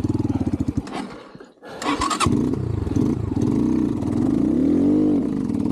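Xpro Templar X 250cc single-cylinder dirt bike engine running, then dying away to almost nothing about a second and a half in. It catches again and revs up and down under load. The cut-out fits the bogging and stalling that the owner puts down to a carburetor idle screw set too low.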